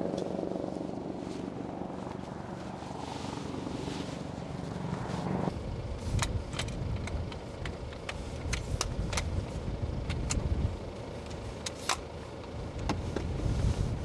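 Low, steady rumble of lava fountains jetting along an erupting volcanic fissure. About five seconds in, the sound changes to a more uneven rumble with scattered sharp crackles and pops, like spatter landing.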